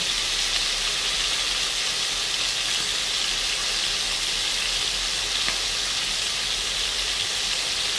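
Cubes of beef searing in a pan of canola oil and butter, a steady sizzle, as the pieces are turned over with chopsticks.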